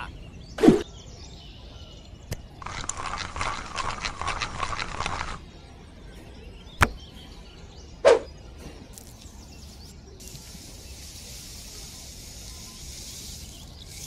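Small hand-work noises: a short thud, a few seconds of rustling and scraping with small clicks, and two sharp clicks. Over the last few seconds comes a steady gritty scratching as a wooden stick is dragged through sand.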